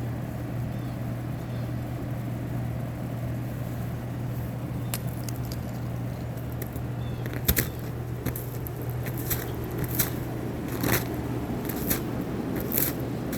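Ice crunching and cracking: irregular sharp cracks starting about five seconds in, over a steady low hum.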